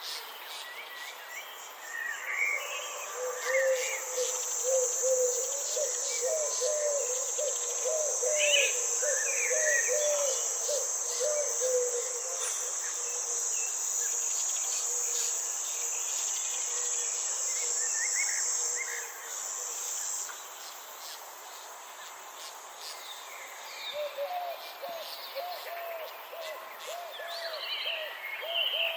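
Garden ambience: a steady, high insect buzz that stops about twenty seconds in, with scattered bird chirps and a lower repeated wavering call that fades out and returns near the end.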